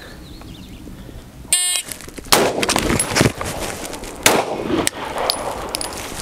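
Shot-timer beep about one and a half seconds in. About 0.8 s later comes a single shot from an AR-15-style rifle, then the noise of the rifle being dropped on its sling and the pistol drawn, and about two seconds after the rifle shot a single pistol shot. The whole drill from beep to pistol shot takes about 2.8 s.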